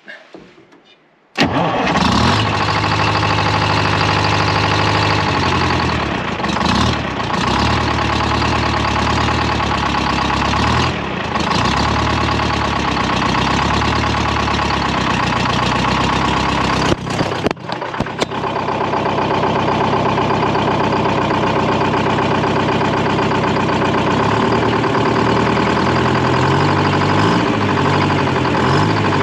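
Detroit Diesel 4-71 two-stroke diesel in a Dynahoe 200-4 backhoe-loader catching about a second in and then running steadily at a raised throttle. Over two-thirds of the way through, the running is broken by a brief dip with a couple of sharp knocks.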